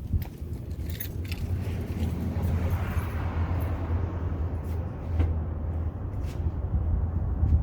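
Truck V8 engine running at a steady idle with its exhaust off, a loud low rumble from the open pipe.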